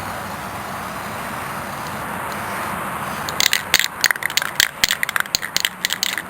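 An aerosol spray-paint can hissing steadily, then, a little past halfway, shaken hard so the mixing ball rattles quickly and irregularly inside it.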